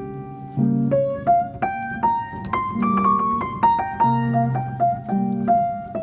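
Background piano music: a melody of single struck notes over held low chords.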